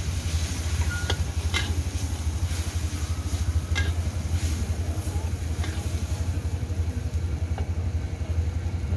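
A metal spatula stirring Pad Thai in a steel wok, scraping and clinking against the pan a few times, over a faint sizzle. A steady low rumble runs underneath throughout.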